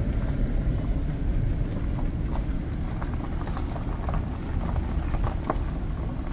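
Car driving slowly: a steady low rumble of engine and tyres, with scattered small ticks and crackles coming more often in the second half.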